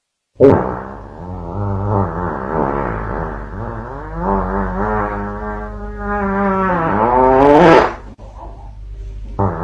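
A long, drawn-out fart with a low, wavering pitch that rises sharply just before it stops about eight seconds in; a second one starts near the end.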